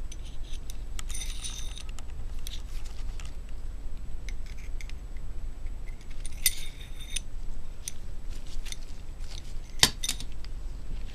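Metal tools and parts clinking against each other and the cylinder head, with two longer ringing clinks about a second in and about six and a half seconds in, and a sharp tap near the end. A steady low hum runs underneath.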